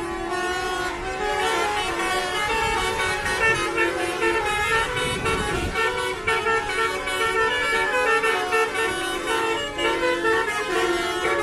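Bus basuri telolet horn playing a tune in short stepped notes. A low rumble swells under it for a few seconds in the middle.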